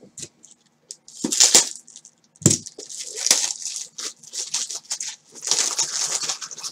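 Plastic rustling and rattling, with a few sharp clicks, in irregular bursts as trading-card holders are handled.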